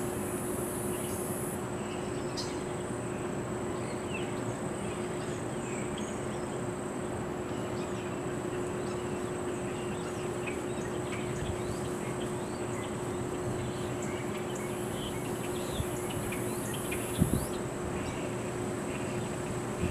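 Steady outdoor ambience with a constant low hum, overlaid by a high insect buzz. The buzz sounds at the very start and again from about fifteen to seventeen seconds in. A couple of short knocks come near the end.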